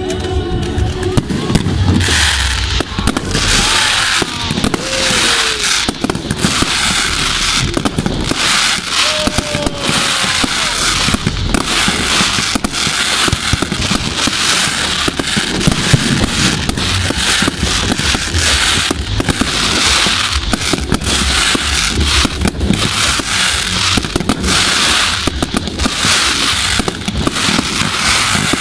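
Aerial fireworks display: shells bursting one after another with crackling stars, a continuous dense run of bangs and crackle from about two seconds in.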